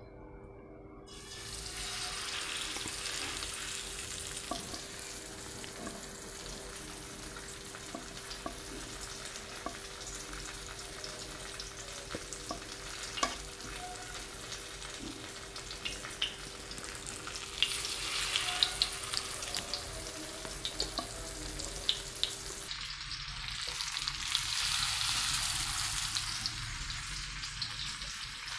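Masala-coated pomfret pieces shallow-frying in hot oil on a dosa tawa: a steady sizzle with scattered pops and crackles of spitting oil, starting about a second in and louder for a stretch near the end.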